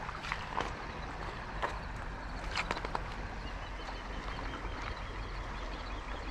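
Steady rush of river water, with a few sharp clicks in the first half and a bird calling in quick repeated chirps from about three and a half seconds in.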